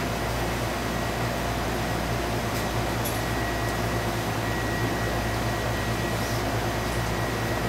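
Steady machine hum and hiss with a faint high whine that holds throughout, and a couple of faint ticks about three seconds in.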